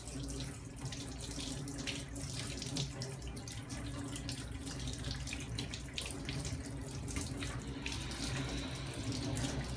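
Water running steadily from a tap into a stainless steel sink as a metal laryngoscope blade is rinsed under the stream.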